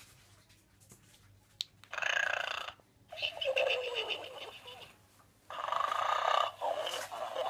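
Gund Arnold snoring pig stuffed toy, freshly repaired, playing its recorded snoring: a short snore drawn in, a longer breath out that falls in pitch, then the next snore begins a little past halfway. A faint click comes just before the first snore.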